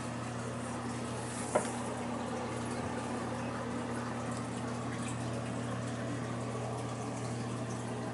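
Steady low hum with an even hiss in a room, and a single brief click about a second and a half in.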